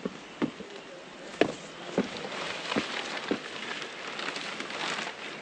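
Footsteps on rough, rocky grassland: a series of irregular footfalls, about one every half second to second, over a steady rustling hiss.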